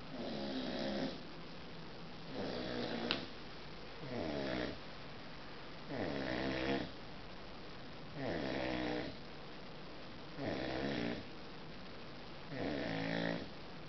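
A sleeping seven-month-old American Bulldog puppy snoring in a steady rhythm: seven snores about two seconds apart, each under a second long and falling in pitch. A single small click about three seconds in.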